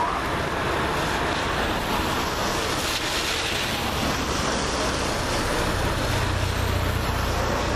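Race convoy vehicles driving past one after another, a van, a motorcycle and a car, with steady tyre hiss and engine noise on a wet road. A low engine rumble swells in the last couple of seconds as the car passes close.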